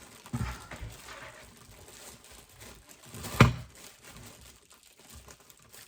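Fingers working at a tightly tied knot on a small bag, with faint rustling and fumbling, and one sharp knock about three and a half seconds in.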